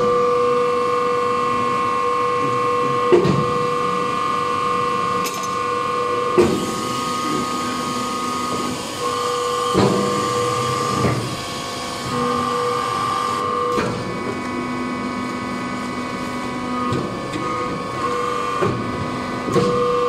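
Hydraulic wood-shavings bagging press baler running: a steady motor and pump whine whose tone shifts every few seconds as the press cycles, with a sharp knock every three to four seconds.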